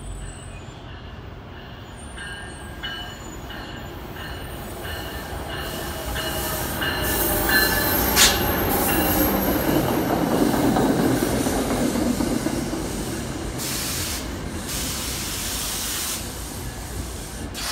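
NJ Transit ALP-45DP locomotive leading a train of Comet V coaches past the platform. The rumble of the train builds as it draws alongside and is loudest as the coaches pass. There is a high wheel squeal, and one sharp clank about eight seconds in.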